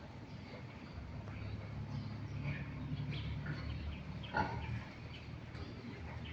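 Pigs grunting in a pen, with a short, sharper noise about four seconds in.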